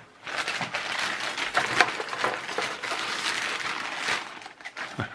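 Thin plastic carrier bag rustling and crinkling as a hand rummages inside it and draws out a plastic-packaged item, a dense crackle that starts a moment in and dies down near the end.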